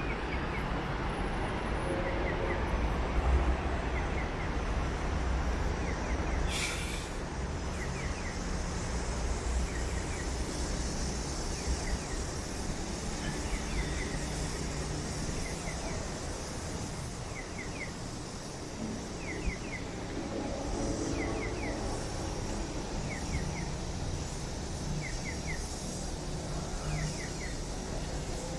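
Outdoor city park ambience: a steady rumble of traffic with a short high chirp of three or four quick notes repeating every second or so. There is a brief hiss about six and a half seconds in.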